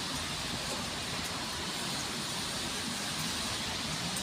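Steady roadside traffic noise from passing vehicles, with an engine note beginning to rise near the end as a vehicle speeds up.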